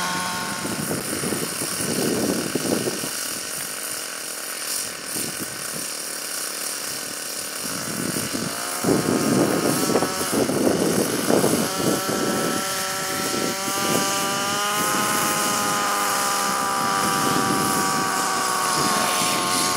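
Radio-controlled Align T-REX 700 DFC helicopter's gasoline engine running on the ground with its main rotor turning. About two-thirds of the way in the engine note rises steadily as it spools up, then holds at a higher steady pitch.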